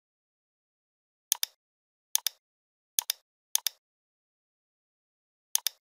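Computer mouse button clicking five times, each click a sharp press followed closely by its release, with silence in between.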